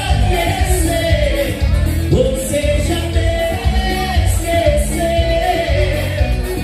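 Live band playing vanera, Brazilian gaúcho dance music: a singer over a steady dance beat with regular cymbal hits.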